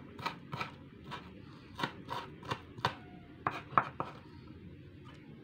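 Kitchen knife chopping white onion finely on a wooden cutting board: about a dozen uneven knocks of the blade on the board, stopping about four seconds in.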